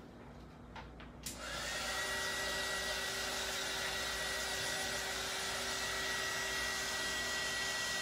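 Embossing heat gun switched on with a click about a second in, its fan spinning up with a short rising whine and then running steadily with an even, high whistle over a rush of air, drying acrylic paint.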